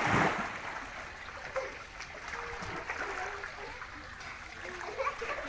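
A splash of water right at the start, then steady trickling and sloshing of shallow pool water as a garden hose pours in and a toddler crawls through it.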